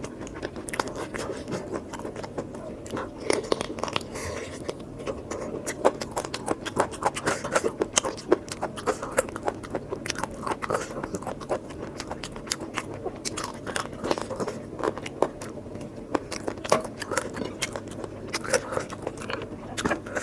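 Close-miked mouth sounds of a person eating: steady chewing and biting, full of quick wet clicks and smacks.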